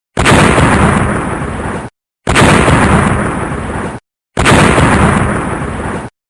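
Explosion sound effect played three times in a row: each time a sudden blast that dies away over about two seconds, then cuts off abruptly, with a short silence before the next.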